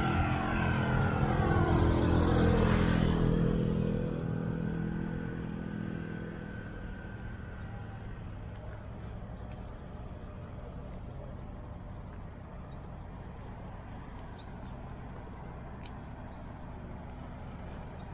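A motor vehicle passes close by. It is loudest about two and a half seconds in and fades away over the next few seconds, leaving a steady low rumble.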